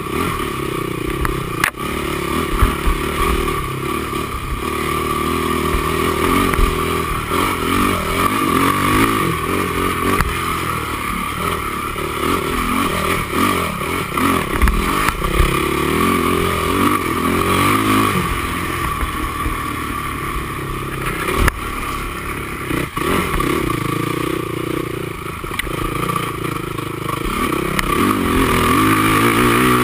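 Honda TRX450R quad's single-cylinder four-stroke engine running hard under race load, its pitch rising and falling with the throttle, heard close up from a mount on the quad. A few sharp knocks and some rattling come from the machine over rough ground.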